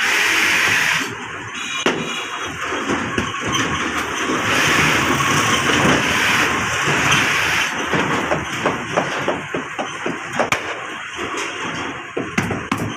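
Stiff leather rustling and scraping as a leather welding glove is worked over a metal rod to turn it right side out, with scattered knocks and taps in the second half.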